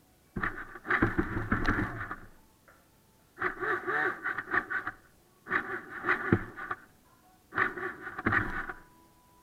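Radio-controlled toy car's electric drive motor and gears running in four short bursts, about every two seconds, as the car is driven back and forth.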